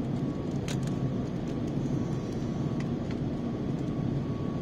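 Steady cabin noise of an Airbus A350 in flight, heard from inside the passenger cabin, with a faint steady whine and a few light clicks.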